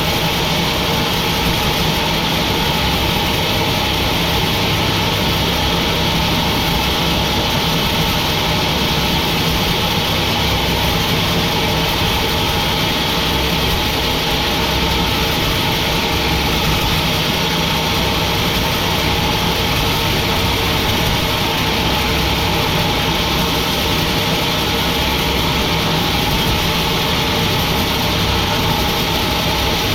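Sawmill machinery running steadily, a constant engine-like hum with no change in load.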